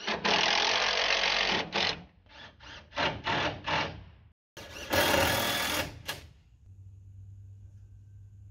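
Power drill driving screws: one long run of about a second and a half, then several short bursts. After a cut comes a second, harsher burst of about a second and a half, and then a low steady hum.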